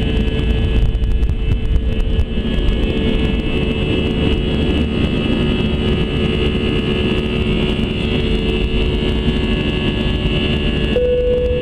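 Airbus A319's two jet engines at takeoff thrust, heard inside the cabin over the wing: loud steady jet noise with a high fan whine over deep rumble. Runway bumps in the first couple of seconds die away as the aircraft lifts off.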